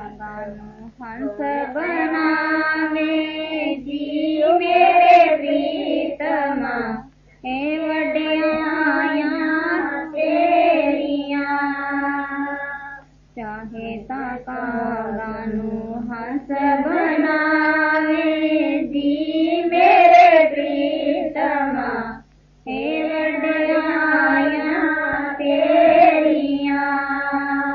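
Devotional shabad singing: a voice carrying long held, wavering notes without clear words, in phrases broken by short pauses, the melody of the first half repeated in the second.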